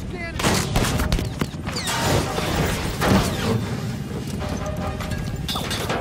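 Film sound effects of gunfire in a helicopter attack: a burst of sharp cracks and impacts starting about half a second in, and a heavier bang about three seconds in, over the helicopter's steady low engine and rotor noise.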